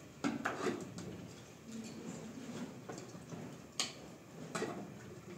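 Light clinks and taps of a spoon and ceramic bowls being handled on a kitchen counter: a handful of short, sharp clicks spread out, the loudest a little before four seconds in.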